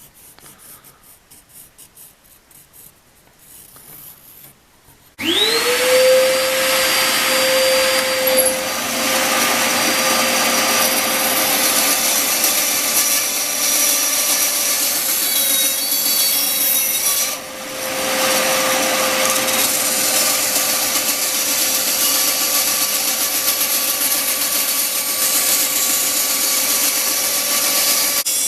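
Light handling knocks at first, then about five seconds in an electric power tool starts, its whine rising quickly to a steady pitch, and runs on while it cuts or sands a wooden handle block. The noise drops briefly past the middle.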